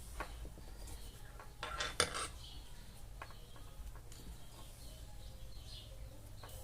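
Metal parts of an electric fan's motor clinking and knocking as they are handled and fitted back together, with a short clatter about two seconds in, over a steady low hum.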